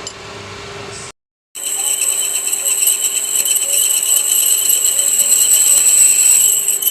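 Loud, harsh metallic scraping noise with a steady high whine and a rapid fine rattle, starting after a brief break in the sound about a second in.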